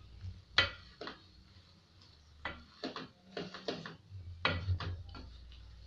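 Wooden spoon stirring small wet fish in an aluminium pot, knocking and scraping against the pot's sides in irregular clicks, the loudest about half a second in.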